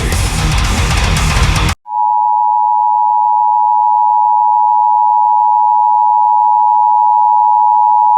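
A loud burst of harsh, static-like noise for under two seconds. It is followed, about two seconds in, by the Emergency Alert System two-tone attention signal: a steady, unbroken dual tone that holds at one pitch and level.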